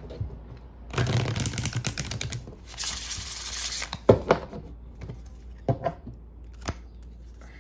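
A deck of large oracle cards being shuffled by hand: a dense run of quick card snaps for about a second and a half, then a smoother sliding rustle, followed by a few separate clicks.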